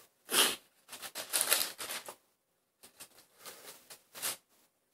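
Thin Bible pages being flipped and riffled by hand: a run of papery rustles, a short sharp one near the start, a longer riffle from about one to two seconds in, then a few shorter flicks near the end.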